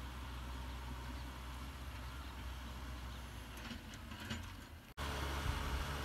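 Kubota M6040SU tractor's four-cylinder diesel running steadily under load while pulling a plow across a field, heard from a distance. About five seconds in the sound cuts and comes back louder and closer.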